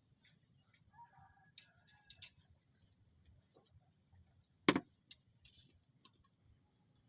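A single dull knock about two-thirds of the way through, over faint scattered clicks and a faint steady high-pitched whine.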